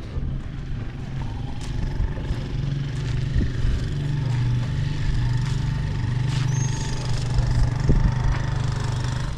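An engine running steadily with a low hum, with a few faint clicks over it.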